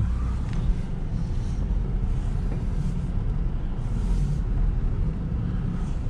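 Lada Niva Travel's four-cylinder petrol engine idling, a steady low rumble.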